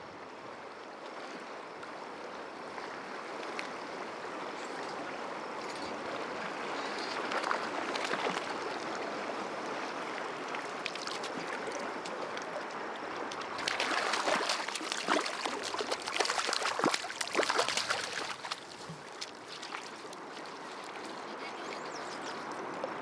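River current flowing steadily. A little past halfway, about five seconds of splashing as a small hooked brown trout thrashes at the surface and is scooped into a landing net.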